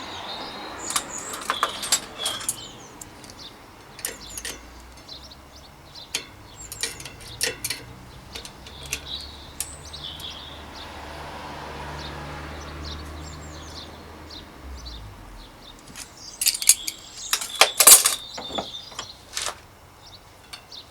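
Metal clicks and clinks of cone spanners working a bicycle hub's cone nut and locknut while the bearing adjustment is backed off from too tight. The clatter is scattered through, with a louder cluster near the end, and a low steady hum sits underneath in the middle.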